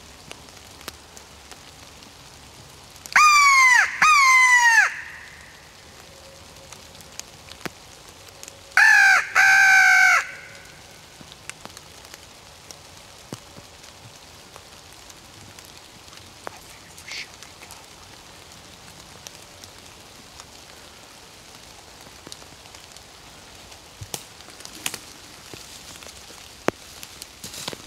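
Crow cawing: two loud caws about three seconds in, then two more about six seconds later, each falling in pitch. Rain hisses and drips in between.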